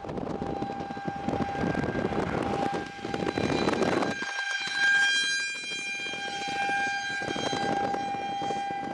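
A long, steady, siren-like tone held at one pitch over a rushing noise. About four seconds in the rushing stops, and the tone carries on alone with a brighter edge.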